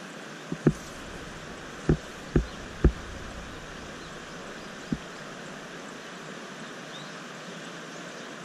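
Steady rush of flowing stream water, with about six short, low thumps in the first five seconds, three of them close together around two to three seconds in.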